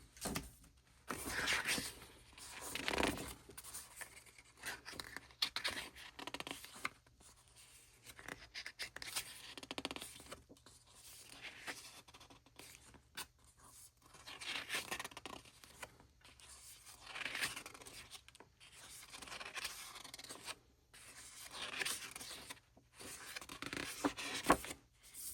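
Paper and card rustling and scraping as an album's booklet and inserts are handled, in irregular bursts with short pauses.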